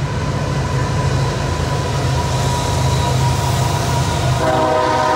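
Diesel freight locomotive running loud and steady as it crosses a steel girder bridge, with a deep engine drone under the rail noise. Its multi-tone air horn starts blowing about four seconds in.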